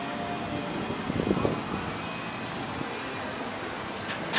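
Steady outdoor background noise, a constant hiss and hum. There is a brief louder sound about a second in and a short, sharp noise at the very end.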